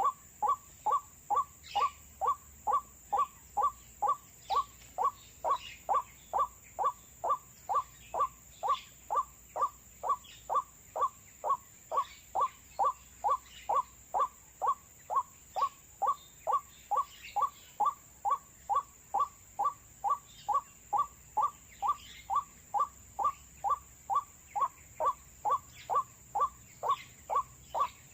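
White-breasted waterhen call played as a trapping lure: a short 'wak' note repeated steadily a little over twice a second, each note falling in pitch.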